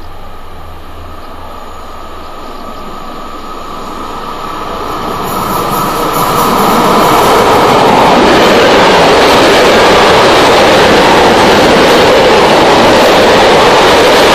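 SBB RAe TEE Trans Europ Express electric trainset approaching and running through the station, its noise building over the first seven seconds or so. It then passes close by with a loud, steady rush of wheels on rail.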